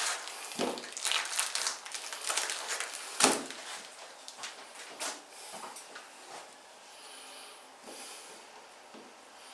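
Plastic food packaging crinkling and rustling as a strip of smoked pork belly is pulled out of its bag, with a couple of soft knocks on the steel tray. The handling dies down to a few faint ticks in the second half.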